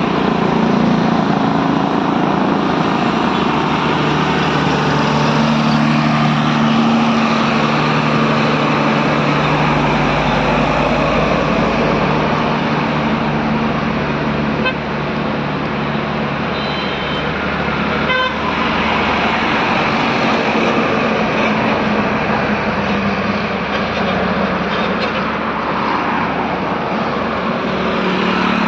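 Heavy trucks running on a mountain road, a steady loud engine and road noise with a vehicle horn sounding.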